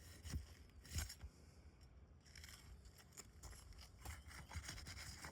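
Faint scraping and tearing of asphalt roof shingles being pried loose, with a few soft knocks.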